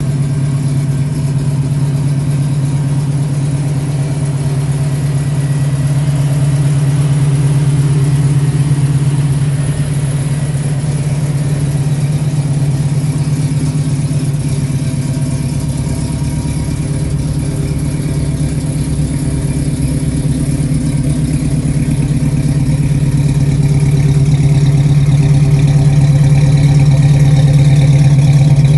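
1965 Ford Mustang GT's 289 cubic-inch V8 idling steadily, growing louder near the end close to the rear exhaust outlets.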